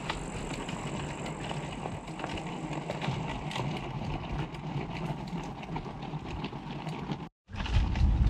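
Mountain bike tyres churning through sticky wet black-soil mud, with a dense crackle of small clicks; the wheels are clogged with mud that makes the brakes drag. After a brief break near the end, a louder low rumble of wind on the microphone takes over.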